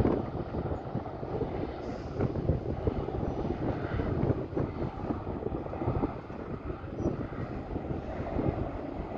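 Low, steady rumble of the passing ferry Diagoras's engines, mixed with gusty wind buffeting the microphone.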